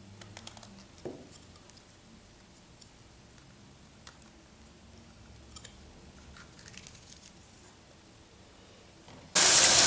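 A small kitchen knife scraping and trimming morel mushrooms, faint scattered scrapes and clicks. Near the end, a kitchen tap suddenly runs at full flow into a plastic colander, the loudest sound.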